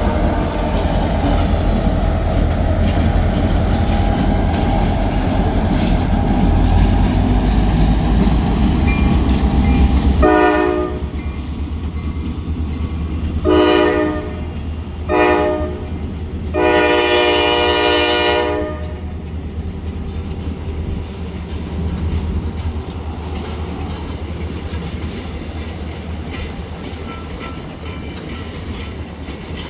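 Diesel freight train at a grade crossing. A heavy locomotive rumble is followed by the air horn sounding four blasts, two short and the last one long, in the grade-crossing signal. The freight cars then roll past with a clickety-clack that slowly fades.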